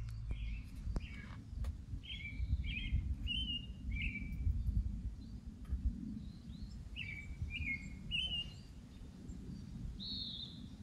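A bird calling: two runs of three or four short, falling notes about half a second apart, and a single higher note near the end, over a low, uneven rumble.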